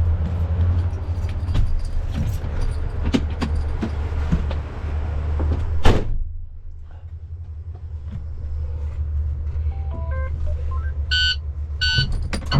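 A truck engine idling low, with knocks and rattles and a truck door slamming shut about six seconds in. Then, muffled inside the closed cab, a short run of electronic dashboard tones stepping up in pitch and a few beeps as the ignition power comes on.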